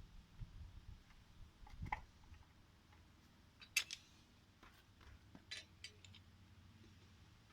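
A few scattered sharp clicks and light knocks over a faint low hum. The loudest click comes a little past the middle, and a cluster of smaller ones follows about two seconds later.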